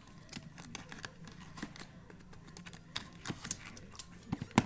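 Box cutter slicing the packing tape along a cardboard box's seam: scattered small scratches, taps and crinkles, with one sharp click near the end.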